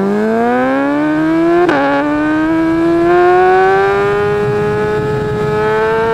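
RC dirt bike's motor whining as the bike accelerates, rising in pitch. Its pitch drops suddenly with a click just under two seconds in, then climbs slowly again.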